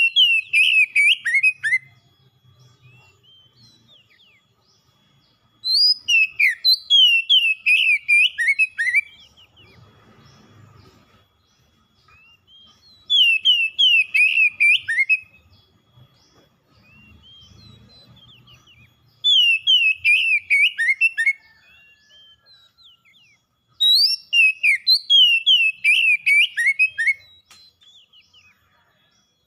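Oriental magpie-robin singing in repeated bouts of rapid, downward-sliding whistled notes. There are five bouts of two to three seconds each, separated by pauses of a few seconds.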